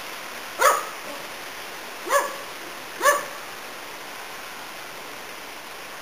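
Papillon barking: three short, high barks within about two and a half seconds in the first half.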